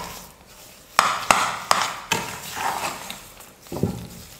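Steel ladle stirring a thick mass of cooked poha and sugar in a nonstick kadai, knocking and scraping against the pan. A run of sharp taps comes about a second in, with a couple more near the end.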